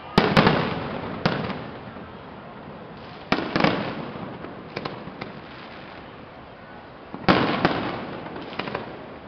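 Aerial firework shells bursting overhead: three loud booms about every four seconds, each dying away in a rolling echo, with smaller sharp cracks between them.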